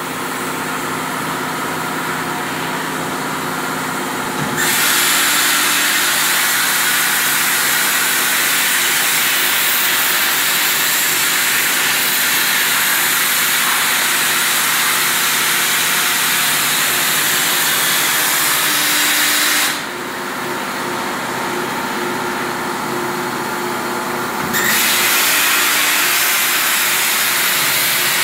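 A CNC cutting machine running with a steady motor hum. A loud, even hiss switches on abruptly about four seconds in, cuts off around twenty seconds, and starts again about five seconds later.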